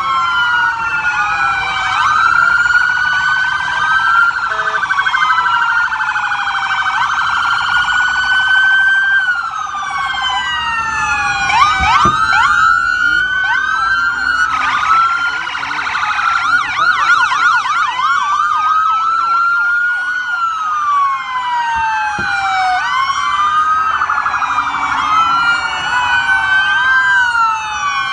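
Sirens of a convoy of police and military vehicles, several wailing at once with their rising and falling sweeps overlapping; a faster warbling siren joins about halfway through.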